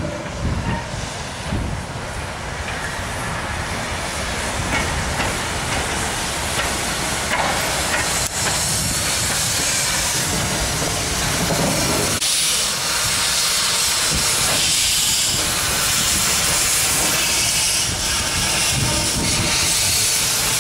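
Steam locomotive moving slowly past, hissing steam from its open cylinder drain cocks over a low rumble of wheels on rail. The hiss becomes steadier and louder about halfway through.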